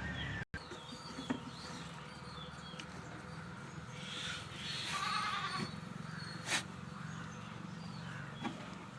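A goat bleating once, a wavering call about five seconds in, with small bird chirps around it and a sharp click a little after the bleat.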